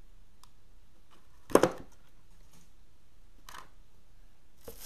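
Handling noise at a workbench as a hydraulic fitting is worked by hand: a sharp knock about a second and a half in, a softer one about two seconds later, and another near the end.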